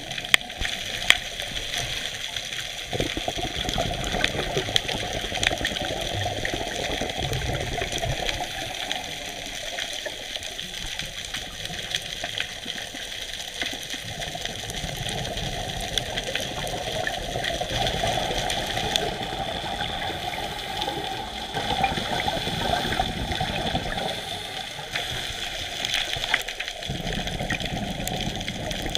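Underwater sound of scuba diving: a steady rushing hiss, with surges of exhaled bubbles every few seconds and a few sharp clicks about a second in.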